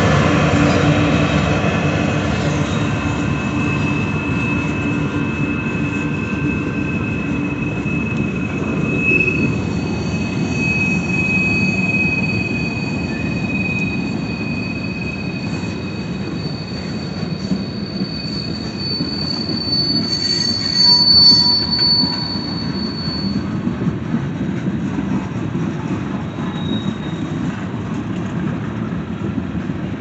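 Freight train boxcars and tank cars rolling past on jointed track with a steady rumble of wheels on rail, and a long, thin, high-pitched wheel squeal held for many seconds. The hum of the departing locomotive fades over the first few seconds, and there is a brief louder burst about twenty seconds in.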